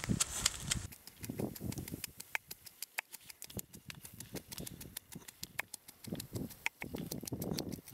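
Wooden pestle pounding chili peppers and garlic in a terracotta mortar: soft, irregular thuds with many sharp clicks of wood knocking on clay.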